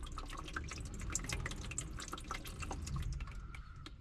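Engine oil dripping from the car's oil pan drain into a catch pan, a quick run of irregular drips and splats.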